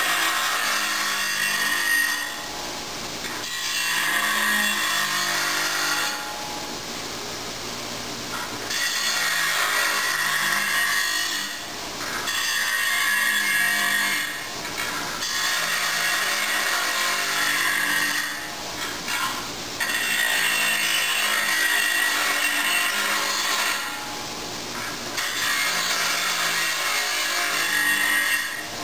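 ATD 8-inch bench grinder grinding the square corners off a steel plate: a harsh grinding rasp in about seven passes of two to four seconds each, with the grinder's motor humming on in the short gaps between passes.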